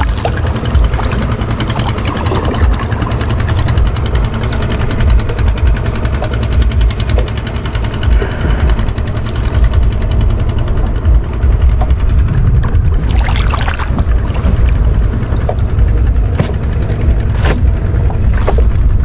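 Gusting wind buffeting the microphone, a loud wavering low rumble, with a few short water splashes from a fishing pole working the surface in the last seconds.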